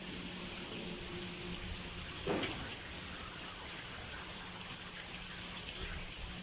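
Heavy rain pouring down in a steady hiss, with one short louder sound about two seconds in.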